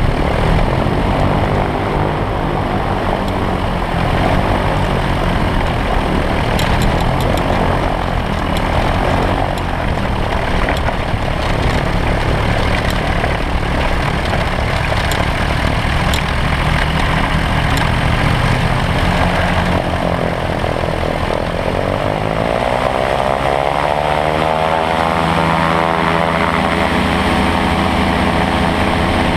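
Briggs & Stratton Vanguard engine and pusher propeller of an ultralight trike, running at low throttle while it rolls over a grass strip, with a few knocks and rattles. About 21 seconds in, the engine revs up over a few seconds and holds a higher, steady pitch.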